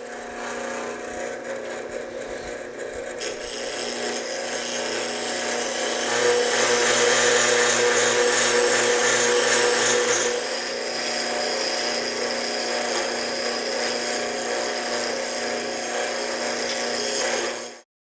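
Delta ShopMaster bench grinder running with a steady hum while a diamond wheel dresser is worked back and forth across the face of its grinding wheel, truing and cleaning it. The harsh grinding hiss builds over the first few seconds, is loudest around the middle, eases slightly, and cuts off suddenly near the end.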